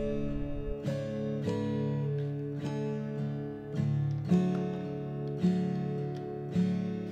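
Background music: acoustic guitar strumming chords, a new chord struck about once a second.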